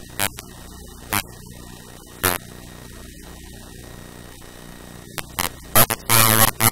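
Steady electrical mains hum in the recording, broken by a few short, loud bursts of noise. The longest burst comes about six seconds in.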